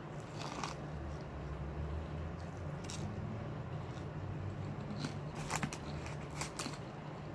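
Biting into and chewing a fried egg roll close to the microphone, with a scatter of sharp crisp crunches, the loudest cluster a little past halfway, over a steady low hum.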